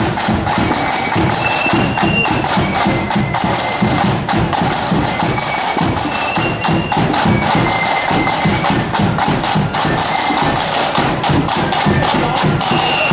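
Marching flute band playing on the march: side drums beating a dense, rapid rhythm, with flutes carrying the tune above them.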